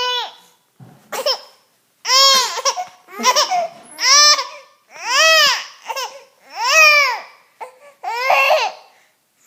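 A 3.5-month-old baby vocalizing in a string of about eight high-pitched coos and squeals, each rising and falling in pitch, about one a second.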